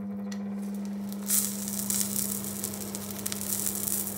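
Portobello mushrooms sizzling in a hot frying pan, the sizzle jumping up suddenly about a second in as the lid comes off, over a steady low hum.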